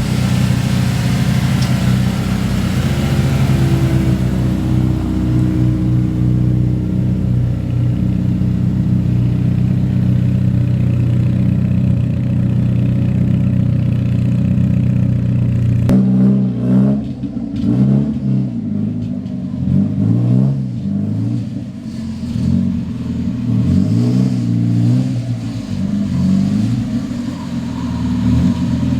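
Car engine running, rising in pitch as it accelerates a few seconds in. About halfway through it changes abruptly to an uneven engine note that keeps rising and falling.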